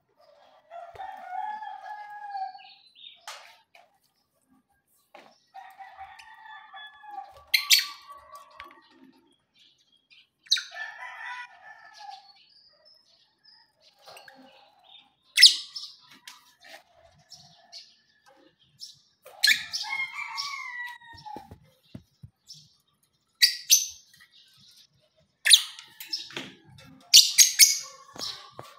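Caged lovebirds chirping and squawking in short bouts, with several sharp, loud calls in the second half.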